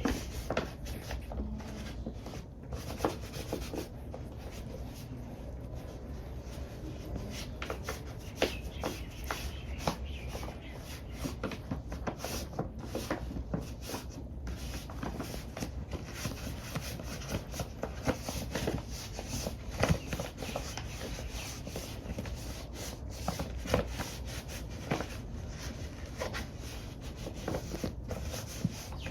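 Cleaning of a cat's plastic recovery cone: a cloth or wipe rubbing over the plastic in many short, irregular strokes with small clicks and scrapes.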